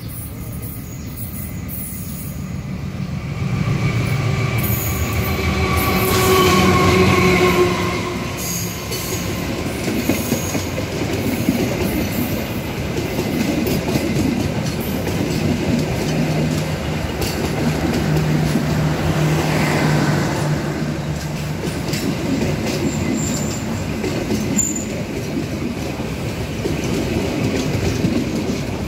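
Passenger train passing close by: the diesel locomotive goes past loudest about four to eight seconds in, its tones dropping slightly in pitch. The coaches follow, rolling by with wheels clacking over the rail joints and a brief wheel squeal about twenty seconds in.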